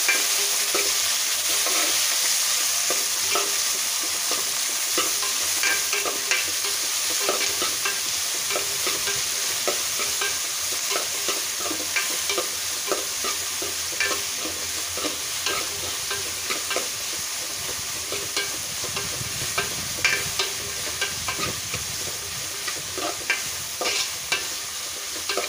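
Small onions, green chillies, tomatoes and curry leaves sizzling in hot oil in an aluminium pot while a metal ladle stirs and sautés them, clinking and scraping against the pot. The sizzle is loudest at first and eases off.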